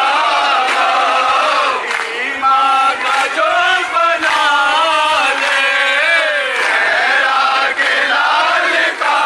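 A group of men chanting a noha, a Shia lament for Husain, in unison as a slow, melodic dirge. Faint regular strikes, hands beating chests in matam, come roughly once a second.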